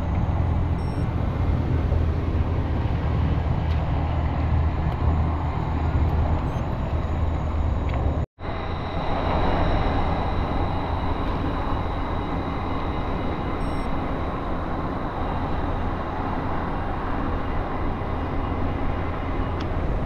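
Steady roar of dense interstate highway traffic, a continuous wash of tyre and engine noise with a heavy low rumble. The sound cuts out for a split second about eight seconds in, then carries on a little lighter.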